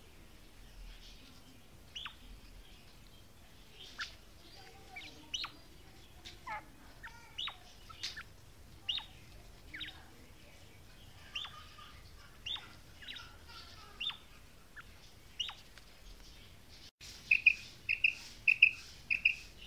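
Female quail calling: a run of short, high notes that slide sharply downward, roughly one a second. Near the end, after a break, louder clipped notes at one steady pitch repeat about three times a second.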